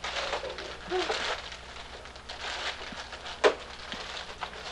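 Wrapping paper crinkling and cardboard gift boxes being handled, with a few brief murmured voices in the first second or so. A single sharp click or knock about three and a half seconds in.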